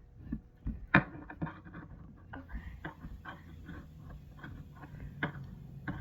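A string of small clicks, taps and knocks of objects being handled, the sharpest and loudest about a second in.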